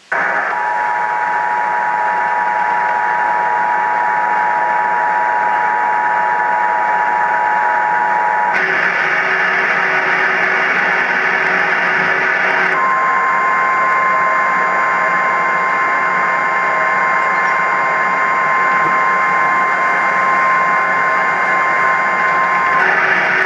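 Emergency Alert System tones received over a hissing, static-filled radio. The two-tone EAS attention signal sounds for about eight seconds, and after a few seconds of plain static the single steady tone of the NOAA Weather Radio warning alarm sounds for about ten seconds, marking the start of a severe thunderstorm warning.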